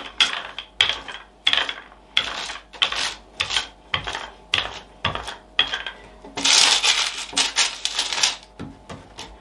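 Wooden rolling pin rolling out a stiff sheet of kalakukko crust dough on a board: a rolling stroke about every two-thirds of a second, each starting with a light knock. About six and a half seconds in, a longer, louder stretch of rolling and rubbing lasts about two seconds.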